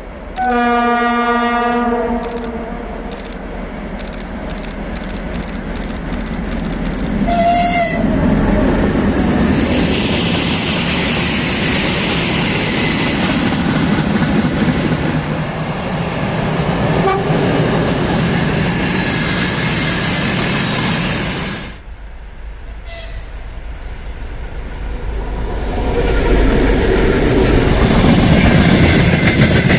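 Green 2M62 twin-section diesel freight locomotive sounds a horn blast of about two seconds, then a short higher toot. It then runs past with its engine and rolling freight wagons, loud and steady. The noise drops suddenly about 22 seconds in, then builds again as the hopper wagons roll by.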